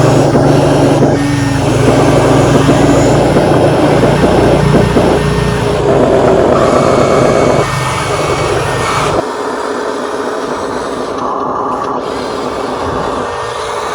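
RC construction machines running: a steady engine-like drone with whining tones, which drops away suddenly about nine seconds in, leaving a quieter, higher hum.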